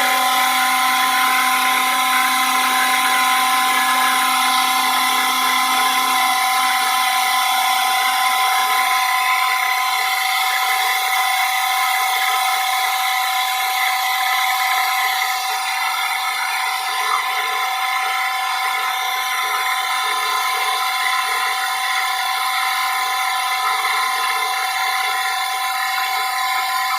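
Dry-mix (volumetric) concrete truck running with its PTO engaged, making a steady, loud mechanical whine with several held tones.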